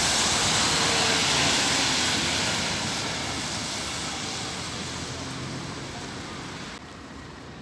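Mercedes-Benz Citaro C2 NGT natural-gas city bus passing close and pulling away, its engine and its tyres hissing on the wet road fading steadily as it goes. The sound drops off suddenly near the end.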